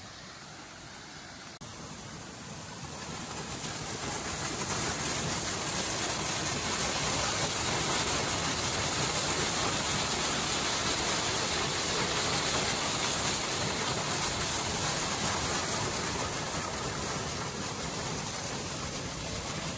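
Steady rush of falling water from a waterfall, growing louder over the first several seconds and then holding.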